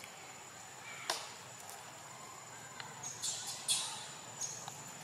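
Dry leaf litter rustling and crackling as macaques shift about on it: a sharp crack about a second in, then a few short scratchy rustles near the end, over a faint steady high-pitched whine.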